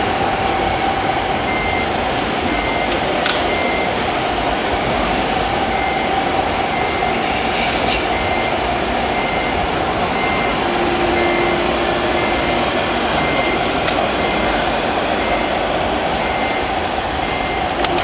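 Reversing alarm of a radio-controlled model construction machine, a short high beep about once a second, over a steady hum and constant background din.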